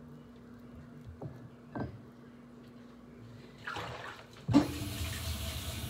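A couple of light clicks, then a kitchen tap turned on and running, with water rushing steadily from about four and a half seconds in.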